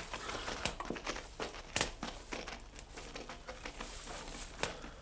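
Rustling of clothing and shuffling footsteps, with scattered small clicks and knocks at uneven intervals.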